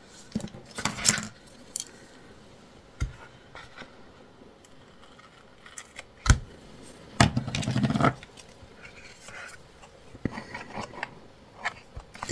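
Paper crafting handling sounds: scattered clicks and taps as a ribbon strip is laid and pressed onto a collaged paper page, with a louder rubbing about seven seconds in and small scissor snips near the end as the ribbon is trimmed at the page edge.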